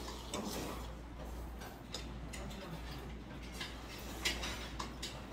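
Eating at a table: scattered light clicks of chopsticks against plates and bowls, a few at irregular intervals, over a steady low hum.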